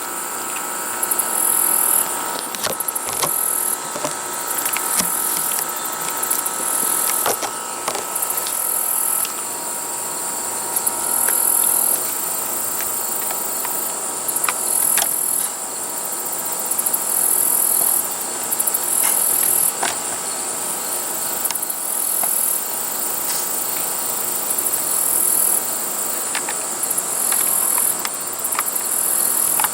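Insects chirping: a high-pitched buzzing that pulses on and off every second or two over a steady high drone, with a few faint clicks.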